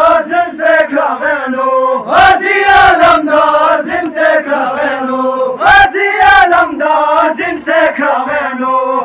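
A group of men chanting a nauha (Shia mourning lament) in unison behind a lead reciter on a microphone, in long rising and falling sung phrases. Regular short thumps run under the chant.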